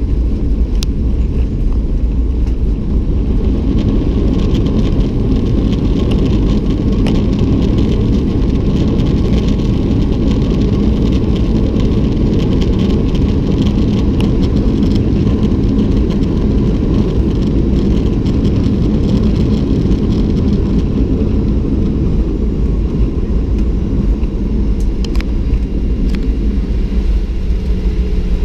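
Steady cabin rumble of a Boeing 737-800 rolling out on the runway just after landing, its CFM56 engines and wheels heard through the window seat. A few faint clicks near the end.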